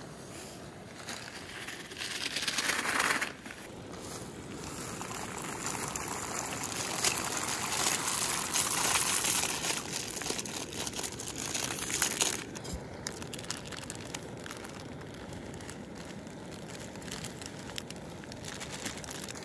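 Plastic zip-top bag and noodle packaging crinkling and rustling as pasta is poured into a cooking pot, over a steady rushing hiss.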